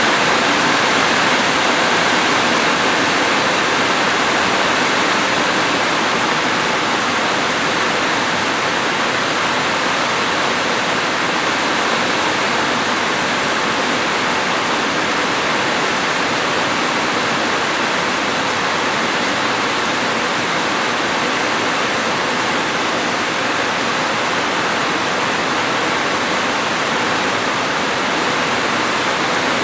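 Steady heavy rain: a continuous, even hiss with no separate drops, thunder or changes standing out.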